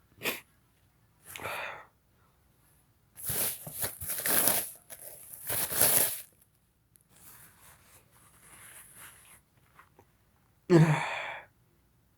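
A person sniffing, then blowing their nose hard twice in two long blasts, with a sudden voiced sneeze near the end.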